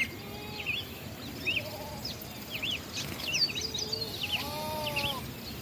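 Small birds chirping in the surrounding trees, many short high calls, with one longer, lower call about four and a half seconds in.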